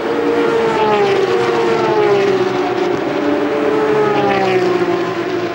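Several Porsche 911 GT3 Cup race cars' flat-six engines running hard, nose to tail, their overlapping notes sliding slowly down in pitch and back up again.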